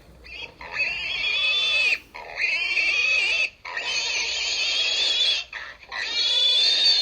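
Pig squealing: about four long, high squeals in a row with short breaks between them.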